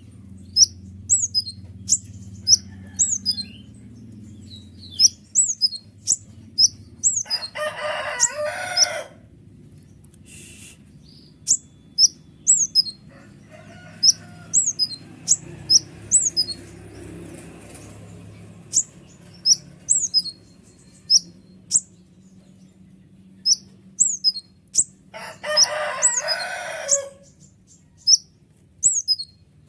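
Kolibri ninja sunbird singing: a rapid series of sharp, high, falling notes, repeated over and over. Twice there is a harsher rustling burst lasting a second or two.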